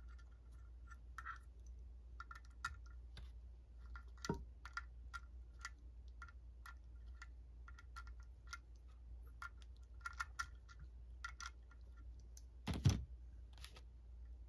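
Socket ratchet clicking in short runs while a nut is backed off an alternator's rear terminal stud, then a solid thump near the end as the ratchet is set down on the wooden bench.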